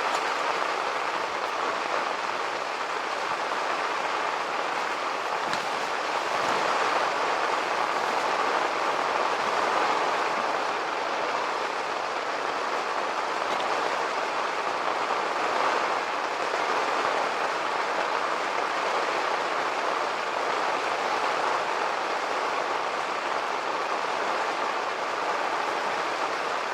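Heavy rain pouring down steadily as an even rushing hiss, swelling slightly now and then.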